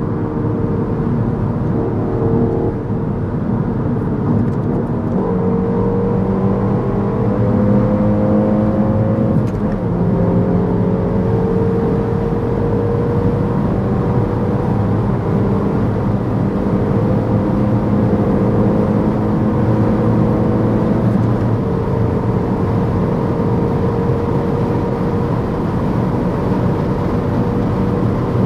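Peugeot 308 GTi's turbocharged four-cylinder engine pulling hard at autobahn speed, its note climbing slowly and dropping in pitch three times, at about three, ten and twenty-one seconds in, as it shifts up. Steady road and wind noise runs underneath.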